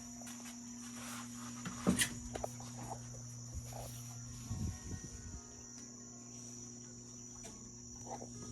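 Steady high-pitched chirring of crickets over a low steady hum, with a sharp knock about two seconds in and a few softer knocks a little later.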